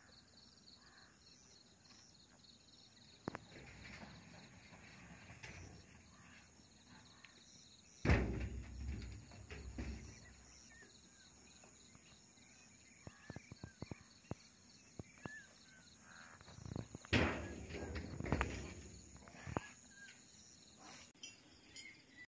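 Quiet outdoor ambience with faint bird chirps, broken twice by a sudden loud rush of noise, about eight seconds and seventeen seconds in.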